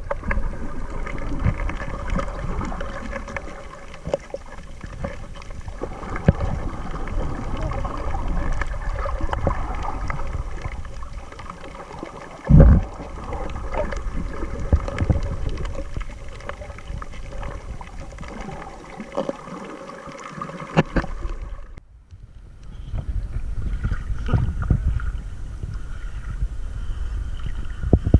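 Water gurgling and sloshing around an action camera held underwater while snorkeling, with a faint steady hum underneath and one dull thump about twelve seconds in. Near the end the camera is at the surface among choppy waves.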